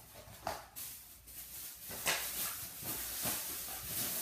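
Plastic toy packaging crinkling and rustling as it is opened by hand, a scratchy hiss that grows busier in the second half.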